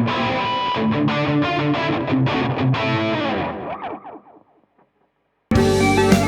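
Suhr Standard electric guitar being played through an amp, then its last notes sliding down in pitch and dying away to silence. About a second later, playing starts again abruptly.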